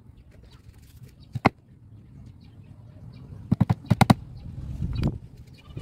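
Claw hammer tapping the cloth cover down onto a wooden chair-seat board. There is a single sharp strike, then a quick run of about six strikes a couple of seconds later, and one duller knock near the end.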